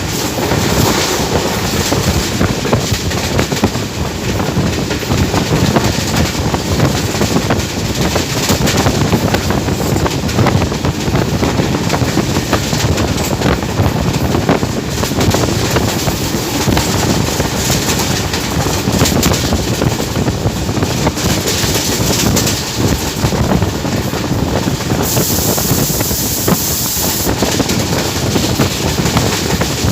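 Train running at speed, heard as a steady rushing rumble with heavy wind buffeting the microphone. About 25 seconds in, a brief high hiss rises over it.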